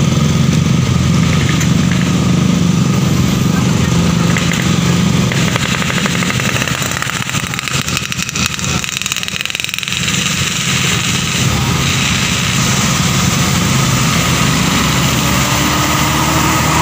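Traffic on a steep hill bend: motorcycles and cars passing with their engines running in a steady, loud low hum that thins out for a few seconds midway. Near the end a large coach engine comes close and its pitch rises.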